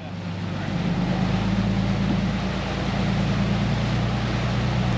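Sportfishing boat's engine running with a steady low drone, under a haze of wind and water noise. It fades in at the start.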